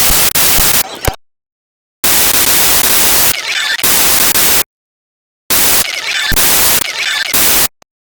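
Loud static hiss in three blocks, each cutting off abruptly into dead silence: once about a second in, again just before the middle, and again near the end.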